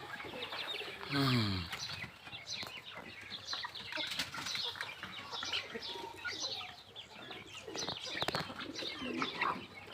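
A flock of chickens calling, many short clucks and chirps overlapping, with one lower, falling call about a second in.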